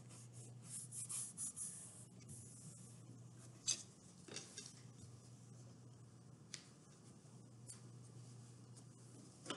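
Faint rubbing and scraping of hands, a ruler and a glue stick on paper as a glued photo is pressed flat onto cardboard, with a few light taps. A low steady hum runs underneath.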